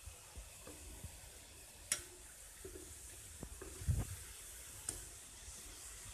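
Urad dal vadas sizzling steadily as they deep-fry in hot oil in a steel kadai. A sharp click about two seconds in and a few knocks around four and five seconds come from the wire skimmer against the pan as the vadas are turned.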